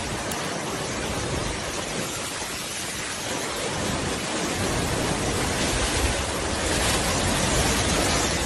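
Hurricane wind and rain making a loud, steady rushing noise that swells with a deeper rumble from about halfway through.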